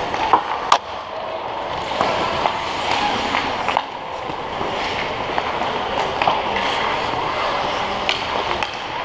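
Ice hockey play: skate blades scraping and carving on the ice, with sharp clacks of sticks and puck (two within the first second) and a background of shouting voices.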